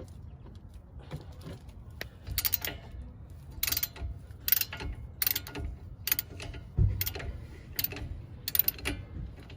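Hand tools on the strut-to-knuckle bolts as they are worked loose: a string of irregular sharp metallic clicks, about one or two a second, with a low thump about seven seconds in.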